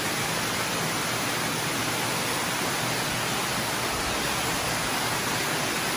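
Steady rushing noise, even and unbroken, loud enough to drown out a distant voice.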